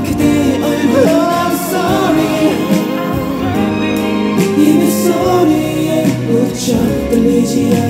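A male singer singing live into a microphone over the song's amplified accompaniment, with long held notes that bend and waver in pitch.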